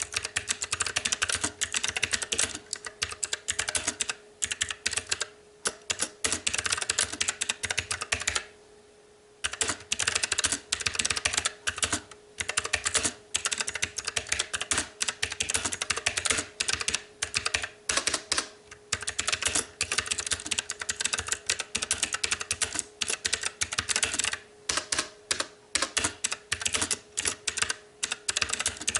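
Fast, continuous typing on a STOGA retro-typewriter-style mechanical keyboard with blue clicky switches, a rapid run of sharp key clicks. The typing stops for about a second roughly nine seconds in, then resumes.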